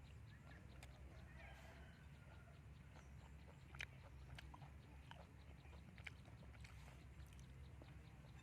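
Near silence: a steady low hum with a few faint, scattered small clicks and taps.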